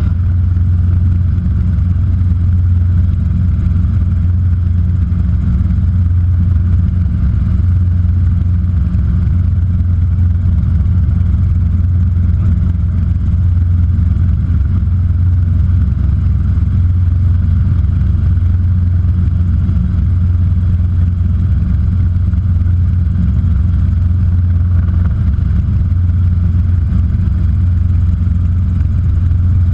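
Robinson R22 helicopter's four-cylinder piston engine and rotor running with a steady, loud, low drone.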